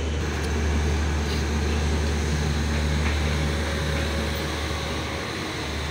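Avadh Assam Express running, heard from inside the moving coach: a steady low hum and rumble.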